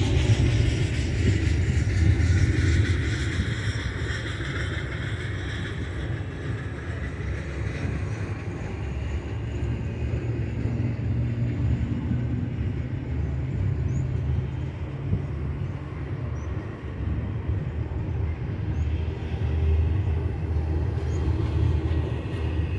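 Double-stack container well cars of a freight train rolling past, with a steady rumble of steel wheels on the rails.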